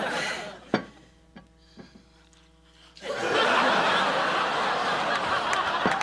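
Sitcom studio audience laughing: a single sharp click, a quiet stretch, then a wave of audience laughter breaks out about halfway through and carries on.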